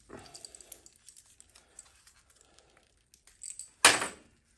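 Hands working at old electrical tape and wires on a motorcycle's taped-up wiring harness, giving light crinkling and crackling. Near the end comes one sharp knock, the loudest sound.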